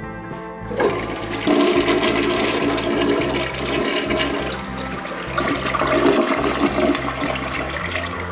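A toilet of unknown make flushing: a loud rush of water starts about a second in, surges twice, and stops near the end.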